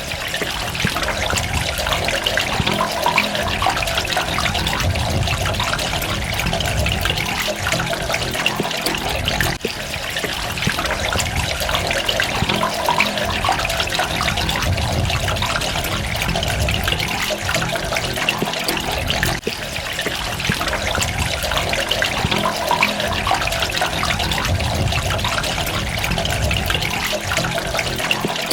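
Running water trickling and splashing continuously, full of small droplet sounds over a low rumble, with brief dips about every ten seconds.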